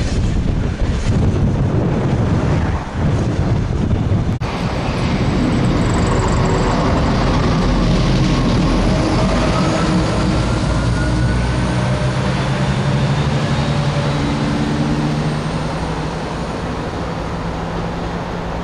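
For the first four seconds, a train of coal hopper wagons rumbles and clatters past. After a sudden cut, diesel trains run close by at a station: a steady engine drone with several held tones and a faint rising whine midway.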